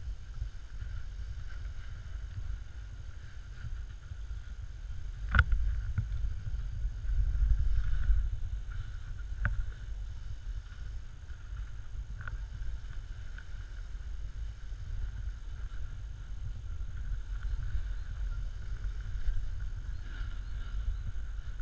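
Snowboard sliding and scraping over packed snow, a steady low rumble mixed with wind on the microphone, with a few sharp clicks or knocks, the loudest about five seconds in.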